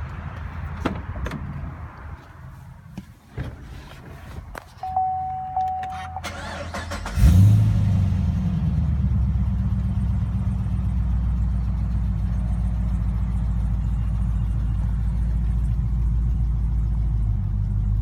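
Clicks and a brief electronic chime, then about seven seconds in the Holden Commodore SS-V's V8 cranks and fires with a sharp flare of revs. It settles into a steady idle through a full stainless aftermarket exhaust, which is quite loud.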